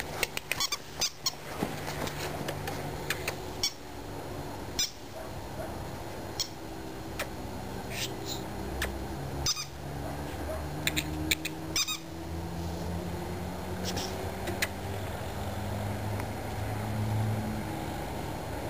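Scattered light clicks and rustles as a black puppy plays with a small rubber ball on dry grass, over a low steady hum.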